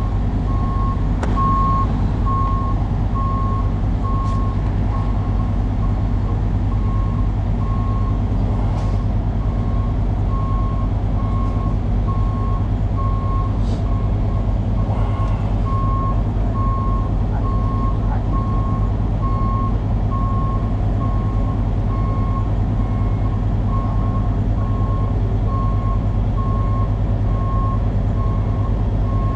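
A backup-alarm-style beeper sounding one steady high beep a little faster than once a second, over a heavy engine idling with a steady low rumble.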